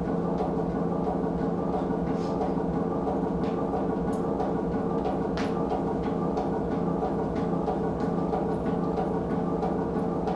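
A steady, unchanging drone of low held tones, with scattered faint clicks over it.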